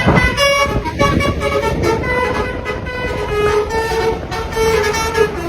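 Indonesian bus 'telolet' horn, a set of musical horns playing a tune of short notes that keep changing pitch, with the bus's engine rumbling underneath.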